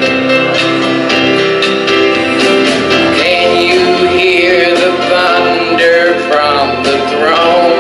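A man singing a gospel hymn into a microphone over instrumental accompaniment, heard through a PA, with long held, wavering notes.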